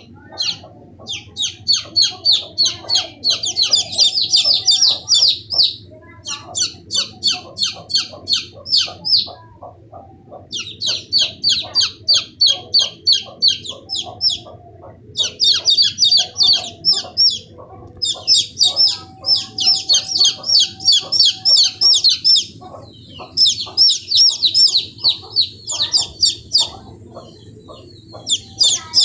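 Baby chicks peeping: bouts of rapid, high-pitched peeps a few seconds long with short pauses between, over softer, lower calls throughout.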